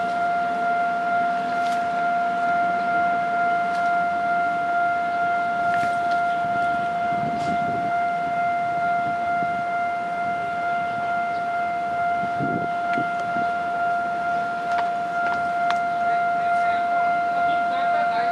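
Railway level-crossing warning alarm sounding as a train approaches, a steady high electronic tone with overtones that does not break or change.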